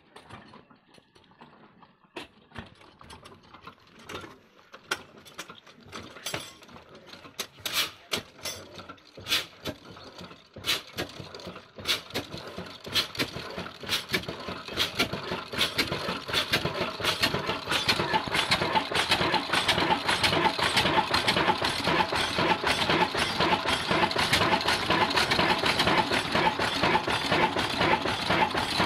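Old single-cylinder Ruston diesel engine starting after hand-cranking: separate knocks begin a few seconds in and come faster and faster as it fires and picks up speed, settling into steady rapid running about two-thirds of the way through.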